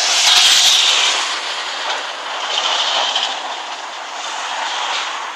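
Road traffic passing on a busy street: a steady rush of tyre and engine noise, loudest in the first second, with a second swell about three seconds in.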